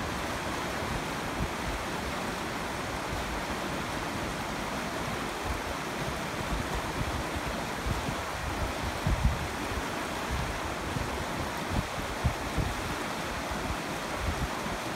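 Shallow, rocky river rushing steadily over stones in a riffle. A few brief low thumps come through about nine seconds in and again about twelve seconds in.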